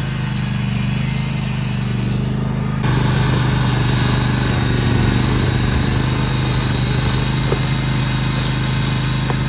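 John Deere garden tractor's engine running steadily while its front-mounted snowblower attachment throws snow. The sound steps up in loudness about three seconds in.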